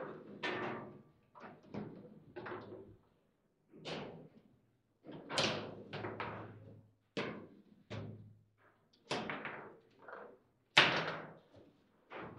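Foosball game in play: about a dozen irregular hard knocks and clacks as the ball is struck by the plastic players on the rods and hits the table. The loudest knock comes near the end.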